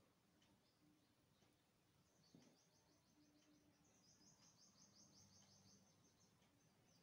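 Near silence: faint room tone, with a faint high trill of rapid repeated chirps, about seven notes a second, coming in about two seconds in and stopping near the end.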